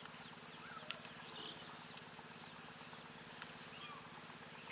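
Insects trilling steadily at a high pitch, with a few short bird chirps scattered over it.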